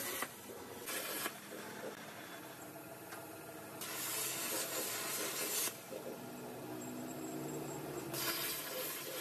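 CNC cutting torch hissing as it cuts through metal sheet, coming in bursts: a short one about a second in, a longer one in the middle and another near the end, quieter in between.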